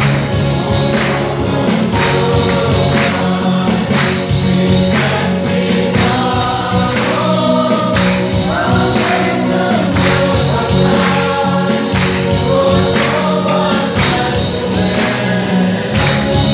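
A congregation singing a worship song together with a choir, over amplified accompaniment with a steady beat.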